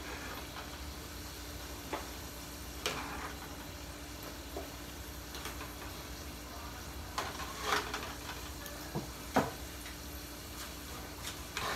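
Hot oil sizzling steadily in a deep fryer with french fries cooking, broken by a few sharp knocks, the loudest about three-quarters of the way through.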